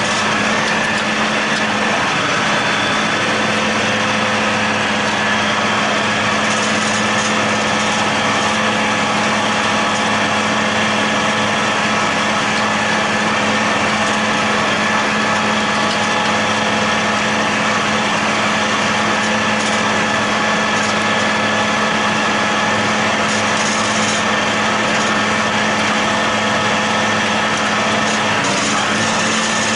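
John Deere 8100 tractor and John Deere 946 MoCo discbine running together while mowing hay: a loud, steady, unchanging drone with a constant hum.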